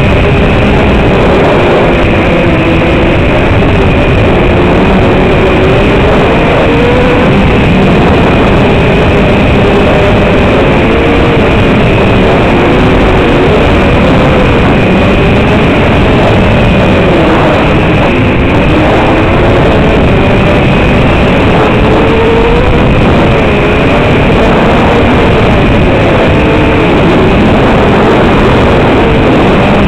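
Small FPV racing quadcopter's motors, picked up on board, their pitch rising and falling continually with the throttle through turns, under a loud steady hiss and a constant high tone.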